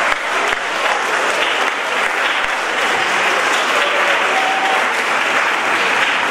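Audience in an assembly hall applauding steadily, a dense clatter of many hands clapping.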